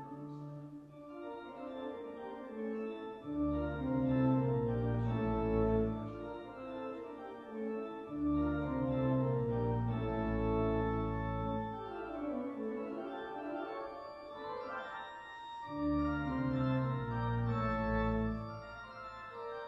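Pipe organ playing sustained full chords as the closing voluntary. Deep pedal bass notes come in and drop out several times, and a falling run of notes sounds about two-thirds of the way through.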